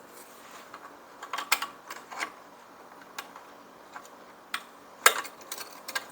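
Irregular small clicks and taps of hand work on a two-stroke blower's fuel tank as new fuel line is fed through the hole in it, the loudest tap about five seconds in.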